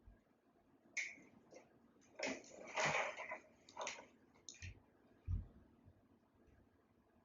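Plastic clicks and scraping as batteries are slotted into a camcorder's battery compartment: a sharp click about a second in, a second or two of scraping and rattling, then a couple more clicks and a dull thump.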